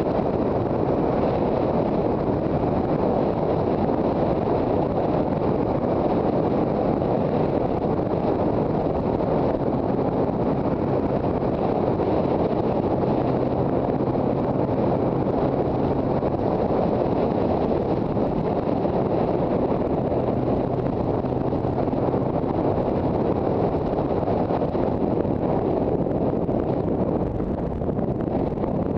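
Heavy wind rushing over the microphone of a riding motorcycle, with the two-stroke engine of a Yamaha TZR250 running faintly underneath at a steady cruising pace.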